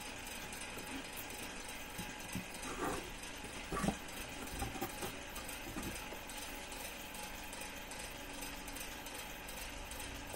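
Steady whir of an electric desk fan, with a few brief rustles and knocks of packaging being handled as an item is taken out of a box, the sharpest about four seconds in.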